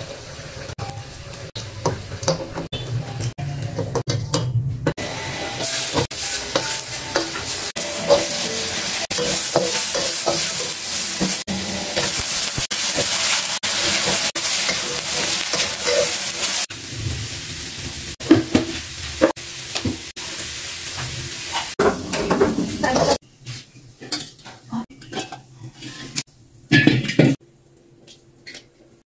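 Food sizzling in a hot frying pan while a utensil stirs and scrapes against the pan. The sizzle is loudest in the middle and drops away near the end, leaving separate clinks and knocks of the utensil.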